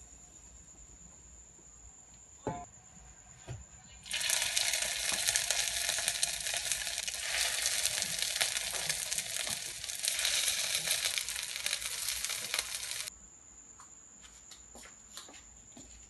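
Gyoza frying in hot oil in a pan, a loud steady sizzle of about nine seconds that starts and cuts off abruptly. A couple of light knocks come before it.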